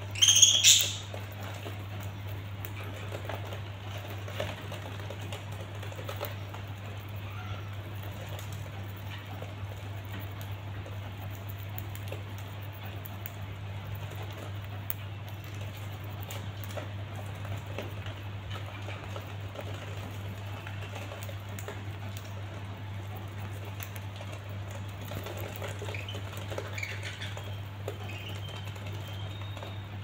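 Budgerigars pecking and nibbling at fresh greens on a cage floor: soft, irregular ticking and tapping, with a loud sharp budgie call in the first second and a few faint chirps near the end, over a steady low hum.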